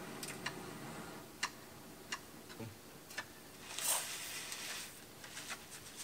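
Light, irregular clicks and taps of hands working with camp cooking gear while vegetables are prepared, with a short scraping rustle just before four seconds in.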